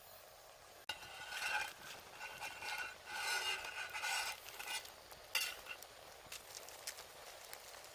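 A utensil stirring and scraping in a cooking pan, in irregular strokes with a squeaky edge, starting about a second in.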